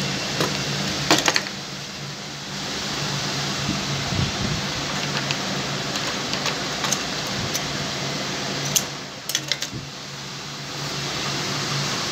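Lockstitch sewing machine running with a steady hum. The hum dips briefly about two seconds in and again near ten seconds, and a few sharp clicks sound around one second and around nine seconds in.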